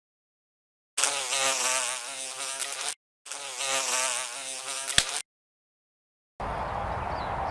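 An insect buzzing in two bursts of about two seconds each, its pitch wavering, with hard cuts between them. A sharp click comes at the end of the second burst. Near the end a steady rushing noise starts.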